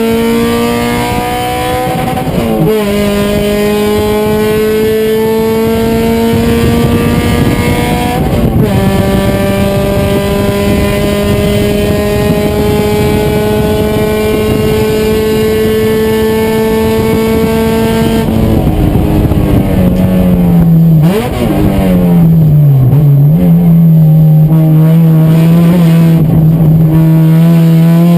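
Race car engine pulling hard, its pitch climbing steadily through each gear, with upshifts about two and a half and eight and a half seconds in. Later the revs drop off for braking, with quick throttle blips on the downshifts, and then the engine holds a steadier, lower pitch.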